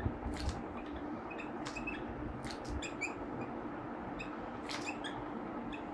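Whiteboard marker squeaking and scratching across the board as words are written, in short irregular strokes, over a faint steady room hum.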